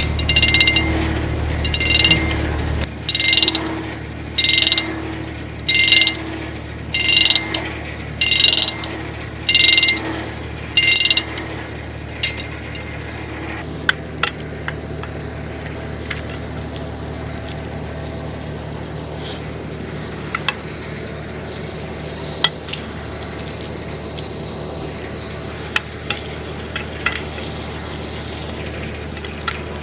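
Tractor engine idling steadily while it warms up in the cold. During the first dozen seconds a short high-pitched sound repeats about nine times, a little more than once a second. Later, scattered sharp clicks sound over the steady running.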